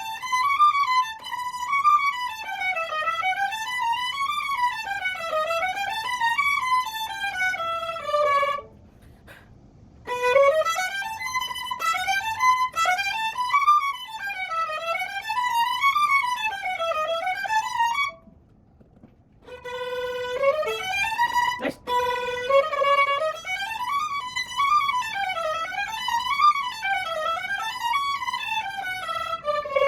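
Violin played in quick runs of notes that climb and fall, like scale or étude practice, in three passages with short breaks about 9 and 18 seconds in.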